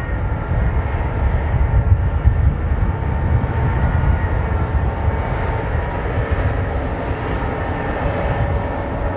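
Boeing 777-300 airliner on final approach with gear down, its twin turbofan engines running as a steady low rumble with a faint thin whine over it.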